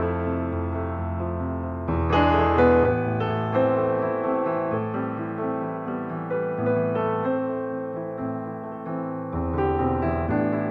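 Background piano music: gently played sustained notes and chords, with a new phrase entering about two seconds in and another near the end.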